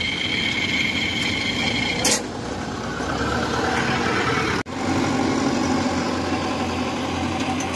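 Engine of a tracked rice-bag carrier running steadily as it drives along the field edge. A high whine stops with a click about two seconds in, and the sound drops out briefly about four and a half seconds in.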